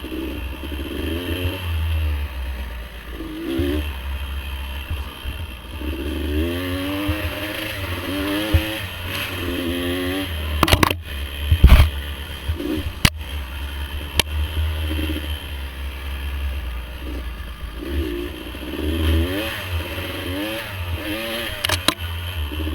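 Dirt bike engine revving up and down through the throttle over heavy wind rumble on the microphone, with several sharp knocks and clatter in the middle and once near the end.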